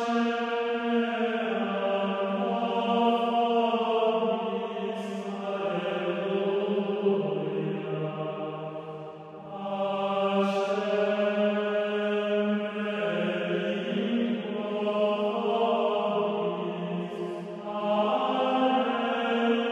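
Background music: a slow sung chant of long-held notes that move up and down in steps, with breaths or consonants breaking in every few seconds.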